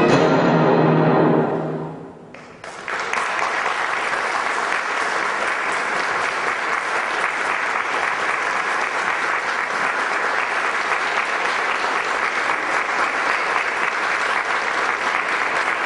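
A concert wind band of brass and woodwinds sounds its last chord, which fades out about two seconds in. The audience then breaks into steady applause.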